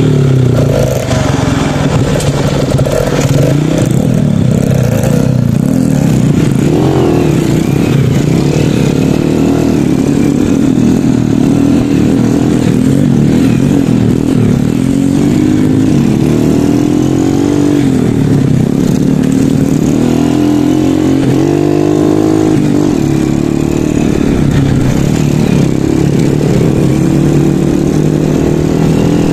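Honda Supra underbone motorcycle's engine running under load, its revs rising and falling with the throttle as it is ridden along a rough dirt trail, with other motorcycle engines running close ahead.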